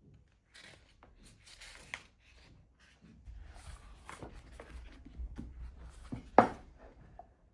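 Rustling and light knocks of household objects being handled, with a low rumble in the middle and one sharp clack about six and a half seconds in.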